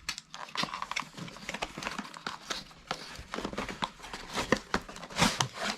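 Cardboard and plastic packaging of a gaming-mouse box being handled and opened: a run of small clicks, taps and rustles, with a longer rustle about five seconds in.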